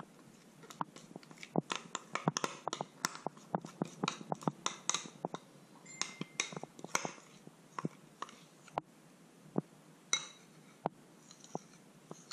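A metal spoon scraping peanut butter out of a glass bowl into a stainless steel saucepan, a rapid run of clinks and scrapes against glass and steel. The taps come thick and fast through the first half, with one short ringing clink about six seconds in, then thin out to scattered knocks.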